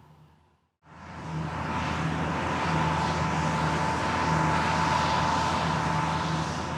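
Deutz-Fahr M2780H combine harvester with its 160 hp air-cooled Deutz engine running steadily, a high whine over a low hum. It fades in after a moment of silence, about a second in.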